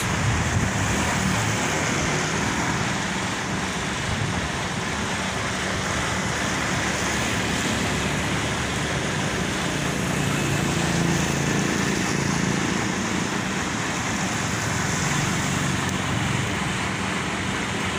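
Hino-engined coach idling close by: a steady low engine rumble under an even hiss.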